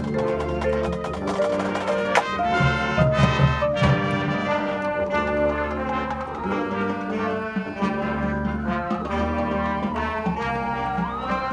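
Marching band playing, with brass chords over drums. Near the end one sliding pitch falls slowly and then swoops back up.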